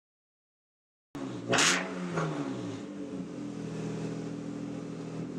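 Dead silence for about the first second, then a BMW E36 328i's stock inline-six engine idling, with a quick throttle blip about a second and a half in and a smaller one just after.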